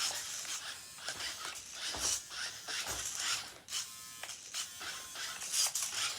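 Toy RC car's small electric motor and gears running as it drives, starting abruptly and surging and easing off as the throttle is worked.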